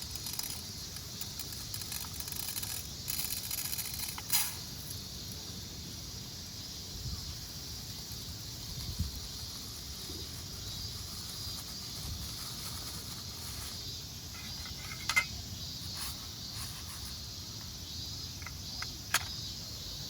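Steady high-pitched drone of insects in summer heat, with a few sharp clicks about four seconds in, near fifteen seconds and near nineteen seconds.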